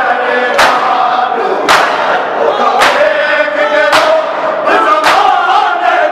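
A crowd of men chanting a Punjabi noha together while beating their chests in unison: matam, a sharp massed slap about once a second keeping the beat of the lament.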